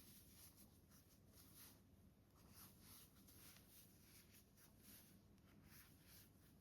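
Very faint, irregular scratchy rustling of yarn being drawn through stitches with a crochet hook, a few strokes a second, close to silence.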